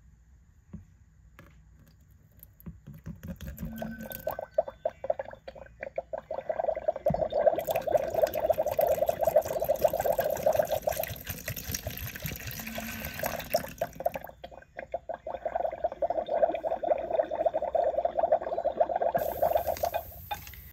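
Water poured from a small plastic potion vial into a plastic toy cauldron (Magic Mixies), a steady splashing gurgle. It starts a few seconds in, dips briefly about two-thirds of the way through, then goes on.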